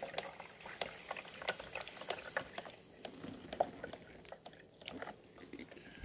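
Water pouring and trickling from a glass carafe into a drip coffee maker's reservoir, faint, with scattered light clicks and taps of the carafe and plastic parts being handled.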